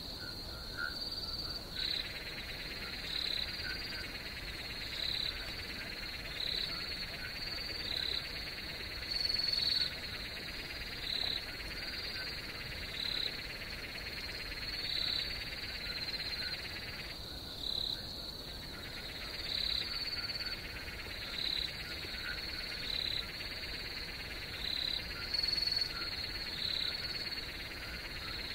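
Night-time chorus of calling animals: a steady high trill underneath, a louder call repeating about once a second, and a lower, denser chorus that drops out for about a second past the middle.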